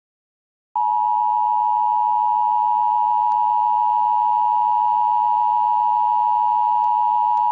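Emergency alert attention tone: a single steady, high-pitched tone that starts under a second in and holds without a break, signalling that an emergency warning message follows.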